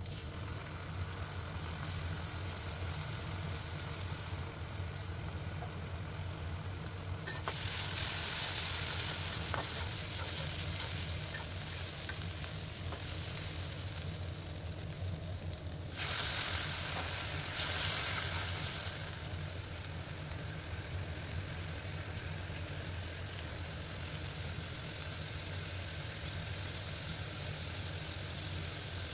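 Sliced onions and ginger-garlic paste sizzling in hot oil in an iron wok, stirred with a flat spatula that scrapes the pan now and then. The sizzling grows louder about a quarter of the way in and jumps to a sudden loud burst a little past halfway, over a steady low hum.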